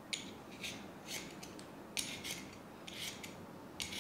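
Vegetable peeler scraping the skin off a raw potato in short, quick strokes, about two a second.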